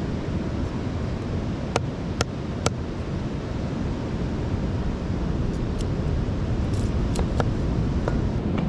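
A steady rush of surf and wind, with a few sharp clicks of a knife splitting bamboo into thin toothpicks, three close together about two seconds in and fainter ones later.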